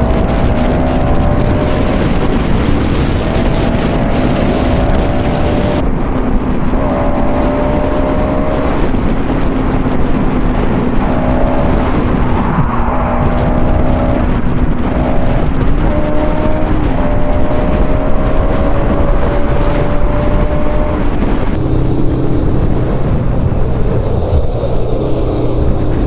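Bajaj Pulsar NS 200 motorcycle's single-cylinder engine running on the move, its pitch climbing and dropping back again several times, under heavy, steady wind noise on the microphone.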